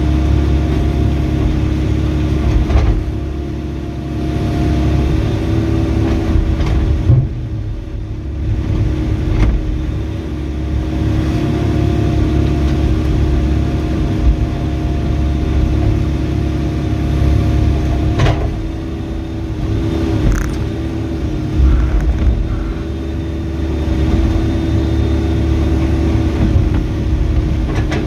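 Diesel engine of a Volvo ECR88D mini excavator running steadily while digging, its note swelling and easing every few seconds as the hydraulics take load. A few sharp knocks cut in, the clearest about 7 and 18 seconds in.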